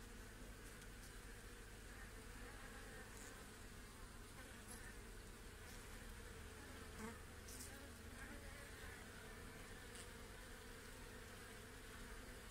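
Many honey bees on an open hive frame buzzing, a faint, steady hum, with a few faint ticks.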